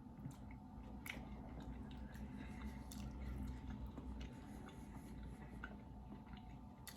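Soft wet squishing and scattered small clicks of clams being handled and chewed, over a faint steady hum.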